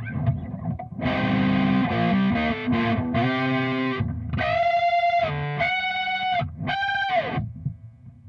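Distorted electric guitar through a Skreddy P19 Muff-style fuzz pedal into a clean Marshall 1959SLP reissue amp: a chord stab, a few seconds of strummed chords, then three long sustained lead notes, the last one sliding down in pitch as it dies away. A low amp hum remains after the notes stop.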